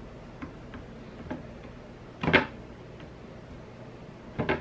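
Foam sponge dauber dabbing paint onto a wooden plate holder: a few light taps, then two louder knocks, one about halfway through and one near the end.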